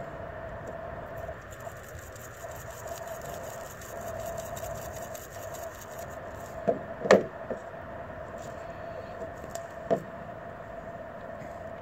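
A faint steady hum under light handling sounds as salmon is seasoned: a few knocks from the seasoning shaker and plastic container, the loudest about seven seconds in and another near ten seconds.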